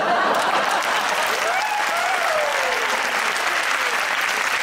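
Audience clapping steadily, with laughter and a few voices rising and falling over the applause.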